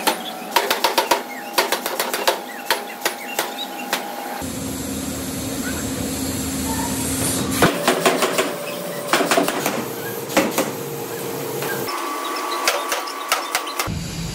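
Hammer strikes on metal in a metalworking shop, quick and irregular at about three to four a second, with a ringing tone under them. A few seconds of steady machine hum with no strikes break them in the middle.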